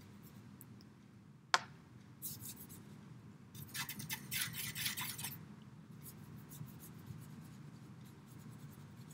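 Paintbrush being worked with watercolour: a sharp tap about a second and a half in, then a few seconds of scratchy brush scrubbing, then faint light strokes.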